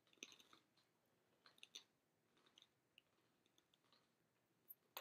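Very faint chewing of communion bread: a few soft mouth clicks scattered through otherwise near silence.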